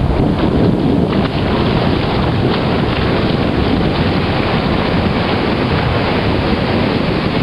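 Wind buffeting the microphone over steady surf washing on the shore: a continuous rumble and hiss with no pauses.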